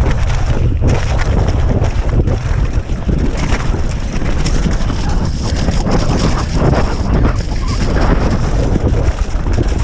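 Wind buffeting the camera microphone as a mountain bike descends a rough dirt trail at speed, with the continuous rattle and clatter of the bike and tyres over the bumpy ground.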